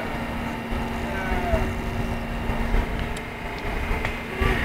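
Outdoor background noise: a steady low hum over uneven low rumbling, with faint distant voices.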